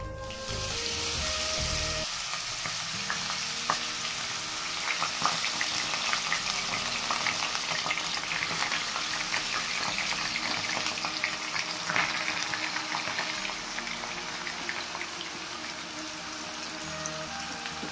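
Grated apple sizzling as it fries in hot ghee in a nonstick kadhai, starting about half a second in, with the clicks and scrapes of a steel spoon stirring it in the pan.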